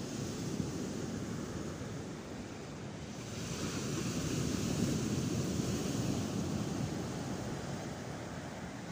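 Sea surf breaking on the beach in a steady wash, swelling louder as a bigger wave breaks around the middle.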